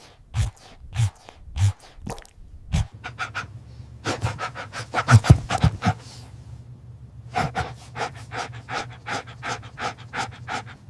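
A dog panting. It starts with slow, heavy breaths about every two-thirds of a second, then pants quickly from about three seconds in, with a short pause partway, over a steady low hum.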